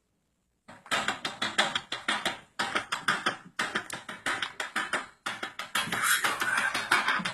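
Heavy metal music starting after a short silence: fast, choppy percussive hits of drums and distorted guitar in a stuttering rhythm.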